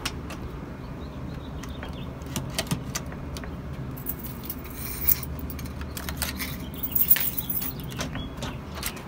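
A bunch of keys jangling, with scattered clicks and knocks of handling at a keycard door lock as a card is tried and the lever is taken. There is a brief high tone near the end, as the reader shows green.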